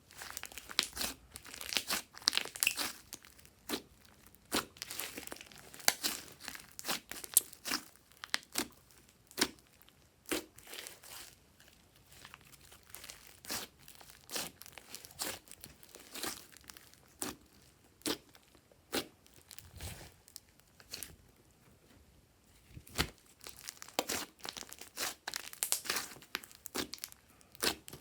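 Glossy slime being squished and stretched by hand, with irregular sticky pops and crackles, several a second, busier at the start and near the end.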